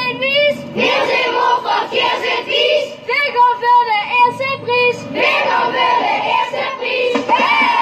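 A group of children singing together in unison, with short breaks between phrases.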